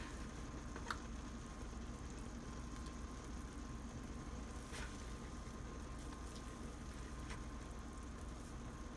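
Faint bubbling of blackberry juice at a low boil in a stainless steel pot, with a few light clicks of a metal spoon scooping sticky dumpling batter.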